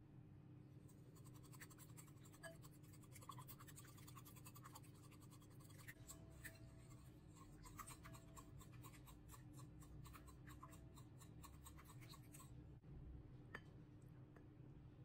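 Wire whisk beating egg and oil in a bowl: fast, faint, irregular clicking and scraping of the metal tines against the bowl, starting about a second in and stopping about twelve seconds in.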